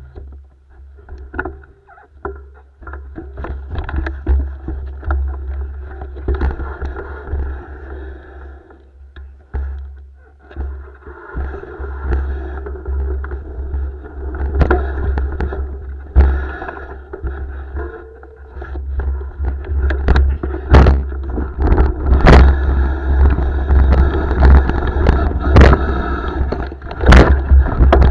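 Mountain bike riding down a rough forest trail: wind rumbling on the moving camera's microphone and the bike rattling over the ground, with sharp knocks from bumps. It gets louder as speed builds, and the knocks come more often in the second half.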